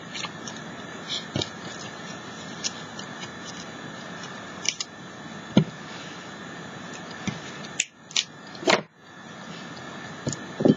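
Light taps and small rustles of craft pieces being handled and set down on a tabletop, over a steady background hiss, with a few sharper clicks about eight seconds in.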